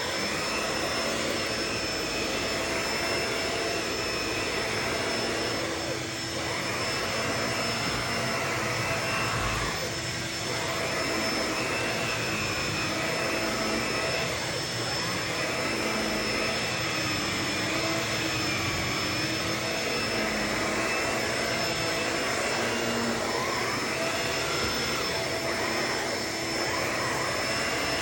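Vacuum cleaner running steadily with a constant high-pitched motor whine, its airflow sound shifting as it sucks up crunchy debris.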